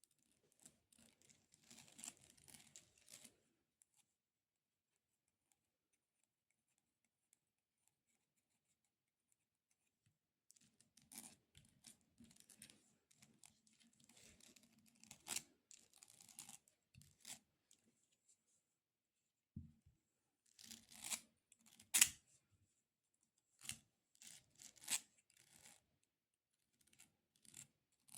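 Extra-long fingernails scratching and tapping on a golden elephant figurine. A short spell of scratching is followed by a pause of several seconds. Then comes longer scratching, and from about two-thirds of the way in, a run of sharp, separate nail taps.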